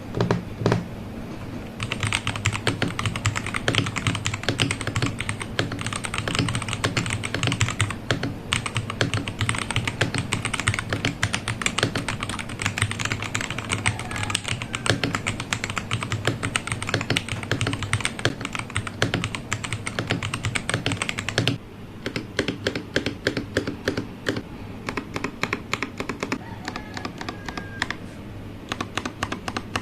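Keydous NJ80 mechanical keyboard with a brass plate being typed on in a rapid, continuous stream of key clacks. About twenty seconds in, the typing becomes sparser, with the keystrokes more spread out.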